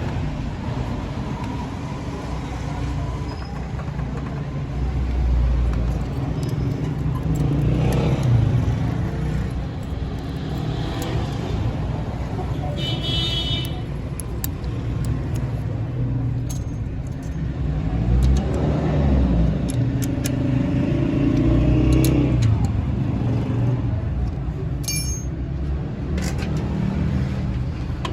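Road traffic passing close by: several vehicle engines running and speeding up, one rising in pitch roughly two thirds of the way through, with a short high-pitched tone about halfway through and a few sharp metallic clicks.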